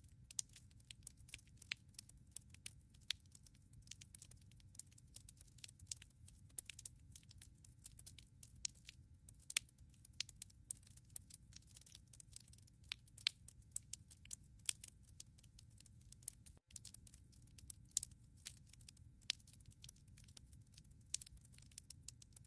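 Wood fire burning in a fireplace: quiet, frequent crackles of burning logs with occasional louder pops, over a low steady rumble of the flames.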